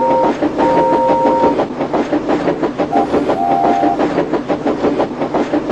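Steam train running, a fast even rhythmic chuff and clatter. Its whistle sounds twice: a short then a long toot near the start, and a slightly higher short-then-longer toot about three seconds in.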